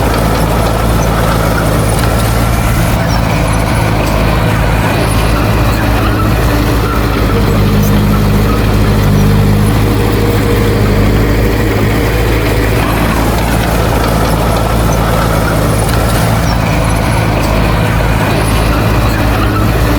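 Heavy earthmoving machine's diesel engine running steadily under work, its low drone holding with small changes in pitch.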